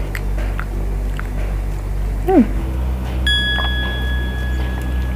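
A short falling tone a little after two seconds in, then a bell-like ding sound effect that rings on steadily for about two seconds, over a steady low hum.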